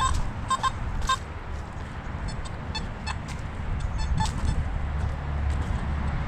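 Metal detector giving short, high beeps: a few loud ones in about the first second, then fainter scattered chirps, over a steady low rumble.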